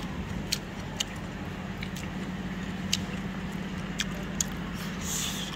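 Chopsticks clicking now and then against ceramic plates and bowls during a meal: a handful of sharp, separate clicks over a steady low hum.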